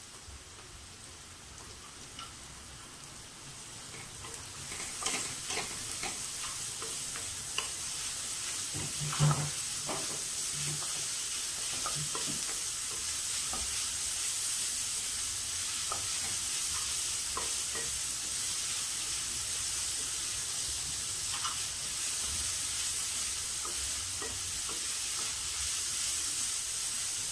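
Chopped onions sizzling in hot oil in a pan, the sizzle swelling over the first few seconds and then holding steady as they sauté to soften. A wooden spatula scrapes and knocks against the pan as it stirs them, most often in the first third.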